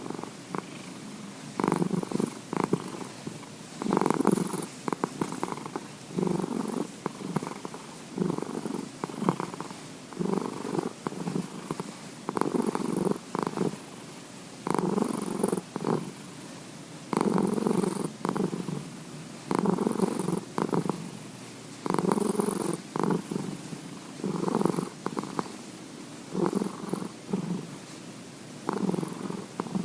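Domestic cat purring heavily and close up, the purr swelling and easing in waves about every two and a half seconds with its breathing.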